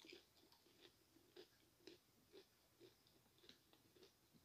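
Faint, soft, moist chewing of a mouthful of fried cheese snack with the lips closed, in even chews about twice a second.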